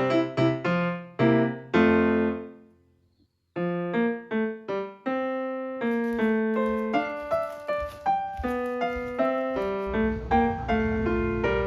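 Background piano music: a phrase of struck notes fades out to a brief silence about three seconds in, then a new phrase begins, with a low sustained layer entering near the end.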